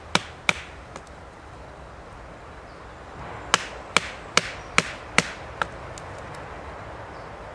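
Wooden baton striking the spine of a Kizlyar Supreme Ute folding knife, driving the blade cross-grain into a hard stick to wedge out chips. There are sharp knocks: two just after the start, then a pause, then a run of about six about two to three a second.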